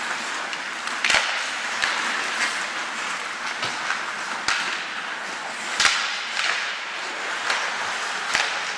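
Ice hockey play: skates scraping the ice under a steady hiss, with about half a dozen sharp clacks of sticks and puck. The loudest clacks come about a second in and near six seconds.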